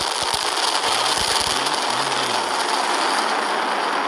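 Falcon 9 first stage's nine Merlin 1D rocket engines in climb, heard as a steady rushing noise with a few low thumps in the first second and a half.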